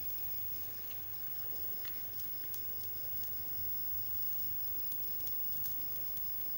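Faint steady background of insects trilling, one continuous high note with no breaks, over a low hum, with a few faint small ticks.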